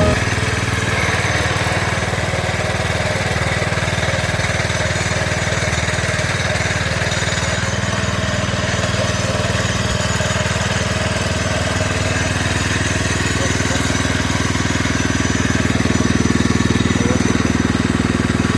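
Small engine of a portable engine-driven winch running steadily, getting a little louder about three-quarters of the way through.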